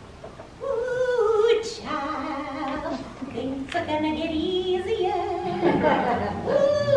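A woman singing a slow melody with vibrato, coming in about half a second in.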